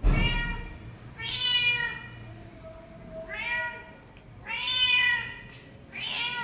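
Domestic cat meowing repeatedly: five meows spaced a second or two apart. The first meow starts with a low thump.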